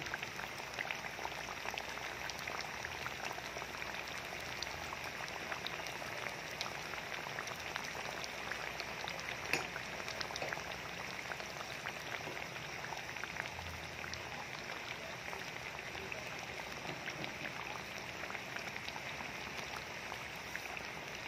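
Flour-battered banana slices deep-frying in hot oil: a steady sizzle with a dense crackle of small pops, and one sharper pop about halfway through.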